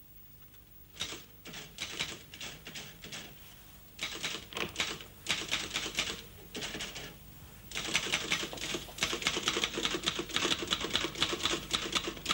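Manual typewriter being typed on: quick runs of key strikes starting about a second in, broken by short pauses, then steady fast typing through the second half.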